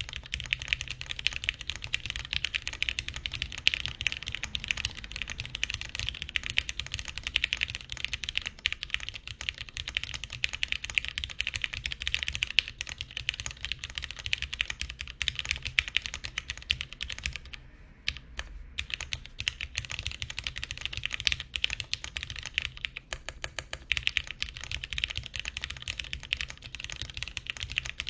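Continuous fast typing on a TGR Alice mechanical keyboard with lubed Gateron Brown tactile switches, a polycarbonate half plate and GMK keycaps. There is a brief pause about two-thirds of the way through.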